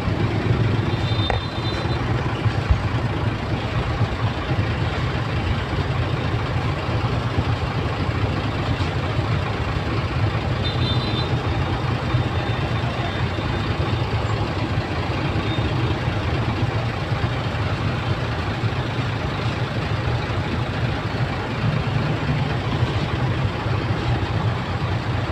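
Traffic-jam engine noise: a steady low rumble of idling engines, a Sinotruk diesel truck close by among many motorbikes.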